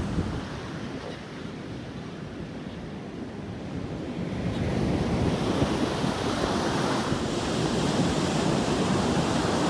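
Rough Atlantic surf breaking on the beach, stirred up ahead of a hurricane, with wind on the microphone. It eases for the first few seconds and then builds again from about halfway through.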